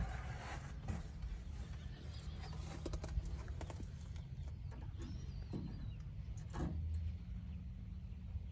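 Handling noise from a phone filming up close: a steady low rumble with scattered knocks and rustles.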